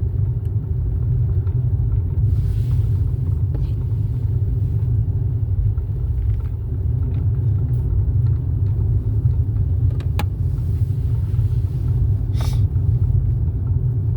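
Steady low rumble of road and engine noise inside a moving car, with a single sharp click about ten seconds in.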